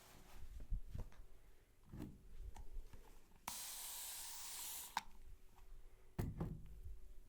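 A sprayer hissing steadily for about a second and a half, starting and stopping sharply about halfway through, amid faint clicks and a few soft low thumps of hands working.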